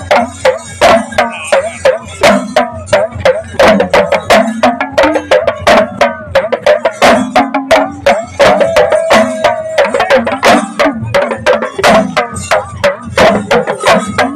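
Drums accompanying Poothan dancers, beaten in a fast, steady rhythm of sharp, loud strokes.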